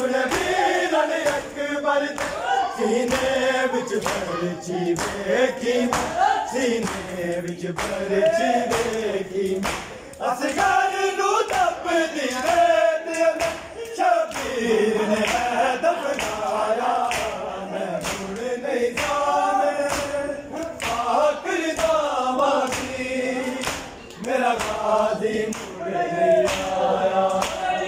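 A group of men chanting an Urdu noha (Muharram lament) together in unison. A recurring beat of sharp slaps from matam, hands striking chests, runs under the singing.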